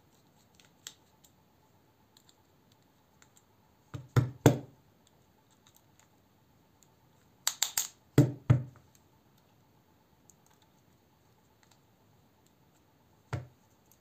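Sharp clicks and knocks from handling a Wiha bit screwdriver and a folding knife while taking the knife apart. A quick cluster of about three knocks comes about four seconds in, a cluster of about four around eight seconds in, and a single knock near the end.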